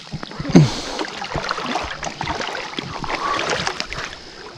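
Water splashing and sloshing in a river, with one loud splash about half a second in and small irregular splashes and knocks after it.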